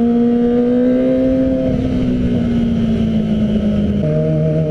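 Kawasaki ZX-25R's 250 cc four-cylinder engine running under way through a full-system Arrow exhaust. Its note holds steady and edges slightly up, then drops suddenly to a lower pitch about four seconds in.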